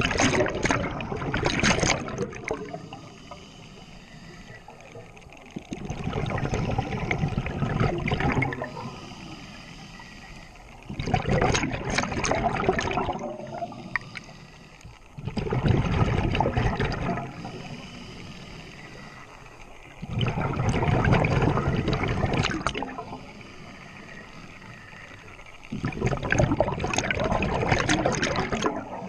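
Scuba diver's exhaled breath bubbling out of the regulator underwater, in six bubbling bursts of two to three seconds each, about every five seconds, with quieter spells between breaths.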